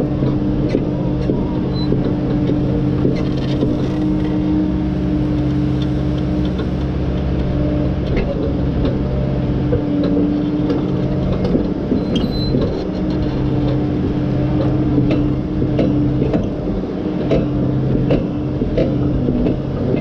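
Heavy diesel engine of a logging machine running steadily as it moves slowly along a dirt lane, with scattered light knocks and rattles.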